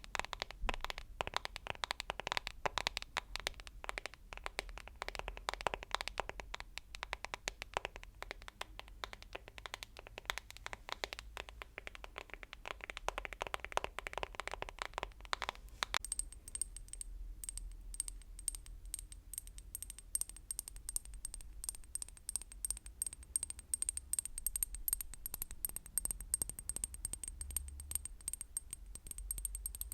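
Rapid, dense tapping and scratching on objects. About halfway through it changes to tapping on a hard object that rings with a high, clear tone at each tap.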